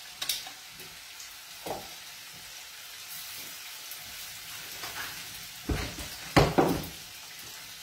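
Asparagus pieces frying in a pan on a gas stove: a steady sizzling hiss. A few knocks and clunks cut across it, the loudest cluster about six seconds in.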